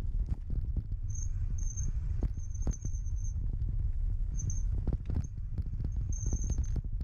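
Low rumble of wind buffeting the microphone, with scattered clicks and crackles of movement through brush. A high-pitched chirring trill comes in several short bursts, the longest from about two to three seconds in and again near the end.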